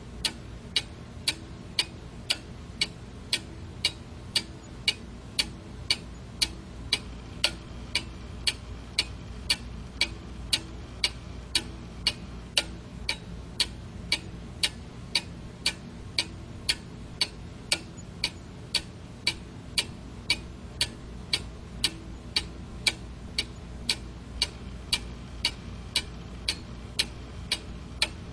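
Quartz alarm clock ticking: sharp, evenly spaced ticks, a little more than one a second, over a faint steady low hum.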